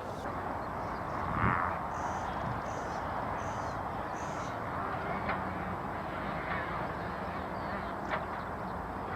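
Motorcycle engines running at the far end of the field over a steady outdoor background noise, with a faint low engine hum in the second half.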